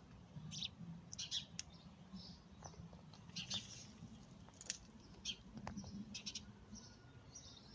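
Faint, scattered short bird chirps, irregular and spaced out, over a low steady background hum.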